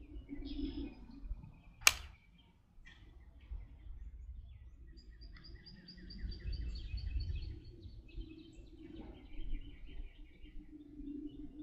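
A single rifle shot from an M1 Garand about two seconds in, one sharp crack that cuts off quickly. Birds chirp throughout over a low background rumble.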